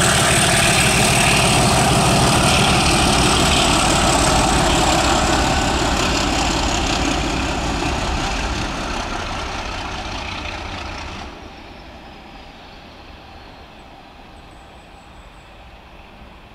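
BR Class 37 diesel locomotives and their English Electric V12 engines running as the test train passes. The sound is loud at first, fades steadily as the train moves away, then drops off suddenly about eleven seconds in to a faint rumble.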